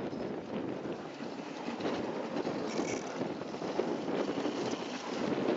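Dog sled running over packed snow behind a husky team: a steady scraping rumble of the runners, with wind on the microphone.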